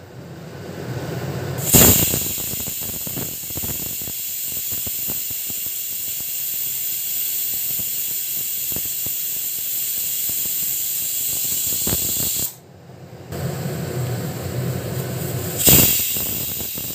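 Pressure cooker whistling: steam hissing out from under the lid's whistle weight. It starts with a loud burst about two seconds in, breaks off briefly about twelve seconds in, then resumes with another loud burst near the end. The cooker is up to full pressure, its whistles counted toward the three the curry needs.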